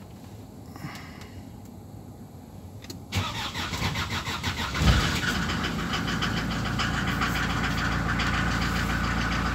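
SsangYong Musso diesel engine cranking on the starter for under two seconds, catching with a loud burst and then idling steadily. The idle holds at about 1000 rpm on the cool engine, a sign that the newly replaced warm-up sensor is now giving the cold fast idle.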